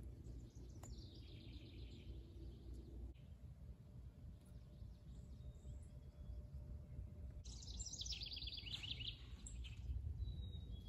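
A songbird sings twice: each song is a quick run of notes falling in pitch, the first about a second in and the second around eight seconds in. Under it is a faint steady low rumble.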